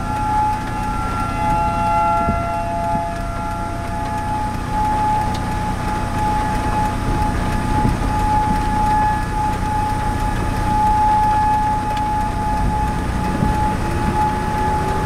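Outdoor warning siren sounding a steady, unwavering tone, over a constant low noisy rumble.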